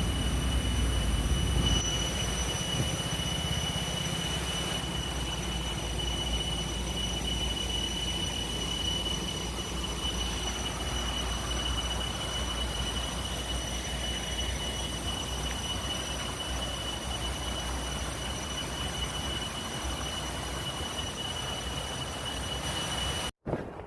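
Steady rush of a flowing stream, with a faint steady high-pitched whine over it. Both cut off suddenly near the end.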